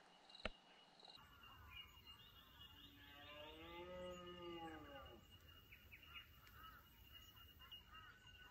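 A red deer stag roaring once, faint, a drawn-out call of about two seconds that rises and then falls in pitch, over scattered bird chirps.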